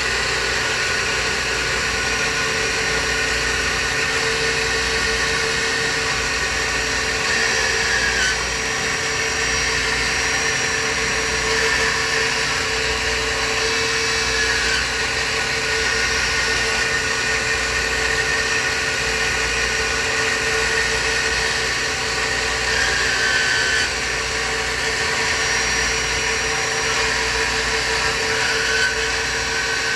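Old Doosan CNC lathe milling a hex into aluminum with a live tool: a steady machining whine with a constant tone, and short shifts in pitch every few seconds.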